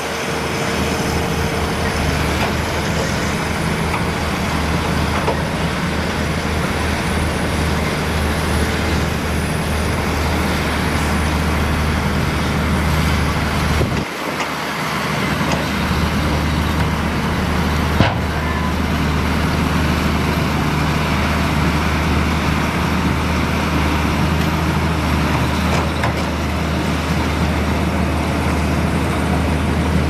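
Heavy diesel engines of a Liugong crawler bulldozer and a dump truck running steadily under load, with a brief dip about halfway and a single sharp clank a few seconds later.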